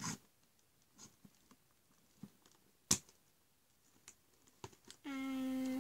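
Scissors cutting and handling stiff cardboard-and-plastic toy packaging: light clicks and rustles, with one sharp snip about three seconds in. Near the end a child's voice holds a long, level "and".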